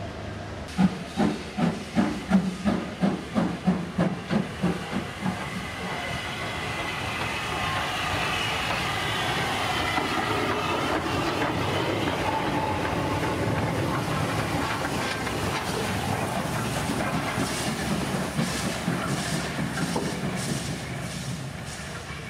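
Steam locomotives of Southern Railway livery, nos. 1638 and 473, working past at close range. About a dozen sharp exhaust chuffs, roughly two and a half a second and fading, give way to a long, steady hiss of escaping steam as the engines go by.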